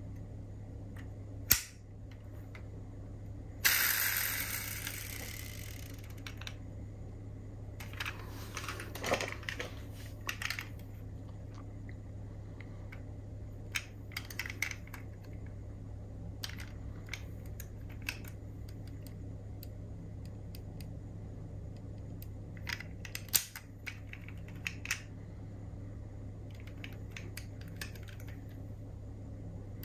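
Small clicks and taps from diecast metal model cars being handled, with a louder scraping rush about four seconds in that fades over a couple of seconds. A steady low hum runs underneath.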